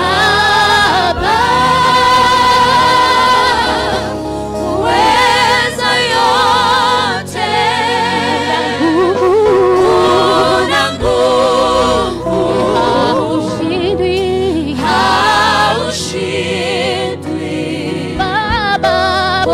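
Gospel worship song: voices singing long held notes with vibrato over a steady low accompaniment.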